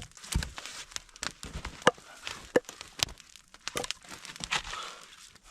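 Ice-covered firewood being handled and propped up: irregular crunching and crinkling with a few sharp knocks of wood on wood.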